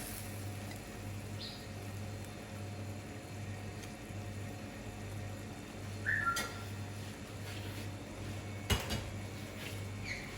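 A few clinks and knocks of a utensil against a cooking pot: a short ringing clink about six seconds in, a sharp knock near nine seconds and a smaller clink near the end, over a steady low hum.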